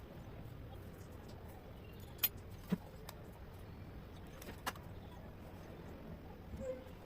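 A few sharp clicks and taps of engine parts and tools being handled during reassembly, over faint background hiss: two close together about two seconds in, another a couple of seconds later and a small cluster near the end.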